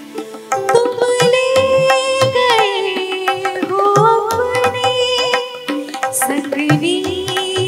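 A woman singing a Hindi film song live, holding long notes that bend and glide downward, accompanied by harmonium, keyboard and tabla-style percussion.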